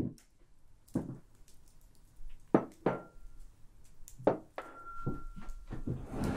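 A bowl being set down on a wooden table, with a series of irregular knocks and clunks of dish and spoon against the wood.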